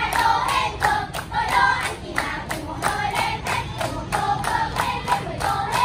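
A group of young children singing a song in unison while clapping their hands in a steady beat, about four claps a second.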